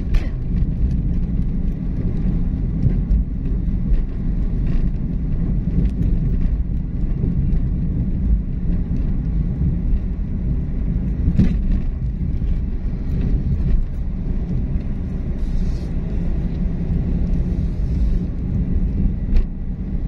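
Steady low rumble of a moving vehicle's engine and tyres on the road, with an occasional knock from a bump.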